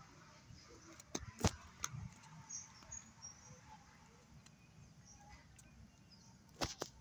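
Quiet outdoor ambience with faint, high bird chirps and a low rumble, broken by a few sharp clicks, a cluster about a second and a half in and two more near the end.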